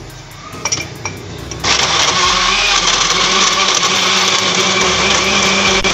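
A few clicks as the jar of a Deuron electric countertop blender is set on its base, then about two seconds in the motor starts and runs steadily at full speed, blending tomatoes, green chillies and water into a chutney.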